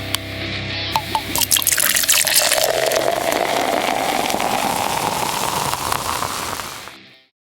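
Beer poured into a glass, the pitch of the pour rising steadily as the glass fills. A few light clinks come near the start, and the pour fades out about seven seconds in.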